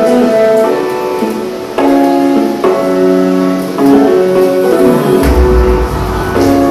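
Music with sustained chords changing every second or so, and a deep bass note swelling about five seconds in.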